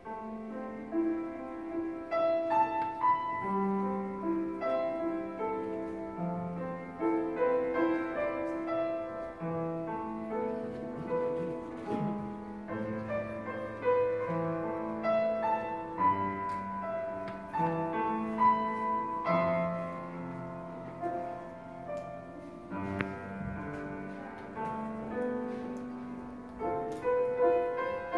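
Grand piano played solo: a classical-style piece with a melody over lower bass notes, beginning right at the start.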